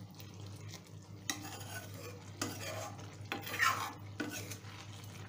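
A metal spoon stirring thick mutter paneer curry in a metal kadhai, with a few irregular scrapes of the spoon against the pan.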